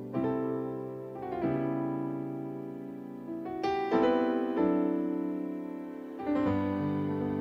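Slow piano music: sustained chords, a new one struck every one to two seconds and left to ring and fade.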